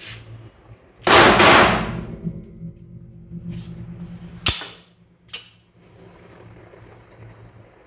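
Redikal RPX9 9mm pistol fired: one loud shot about a second in that rings on briefly, followed later by two shorter, sharp sounds.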